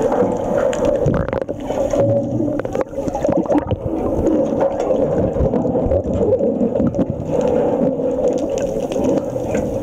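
Underwater sound picked up by a submerged camera: muffled churning water and bubbles with scattered crackles, over a steady low hum.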